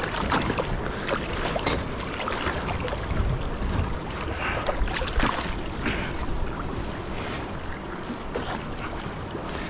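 Water splashing and sloshing against the boat's hull as a small tarpon thrashes beside it, in irregular short splashes over a steady low rumble of wind on the microphone.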